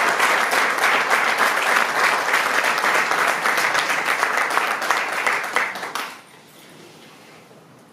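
Small audience applauding with dense, steady clapping that stops about six seconds in.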